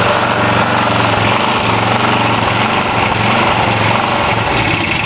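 Toro walk-behind lawn mower's small gasoline engine running steadily at a constant speed, with its air filter removed.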